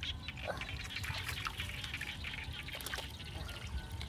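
Hands working in shallow muddy water, picking snails out of it: a run of small splashes, trickles and drips as water runs off the hands and the lifted snails.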